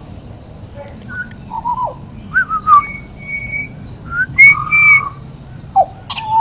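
Pied butcherbird singing: a string of clear whistled notes with short gaps between them, some held steady and some gliding down in pitch.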